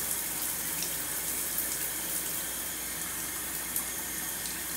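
Shower water running steadily, spraying down onto the floor of a bathtub.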